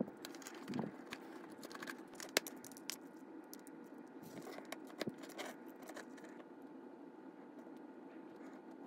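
Small metal parts of a model locomotive's chassis and motor clicking and scraping as they are handled and fitted back together by hand: a few light clicks, the sharpest about two and a half seconds in.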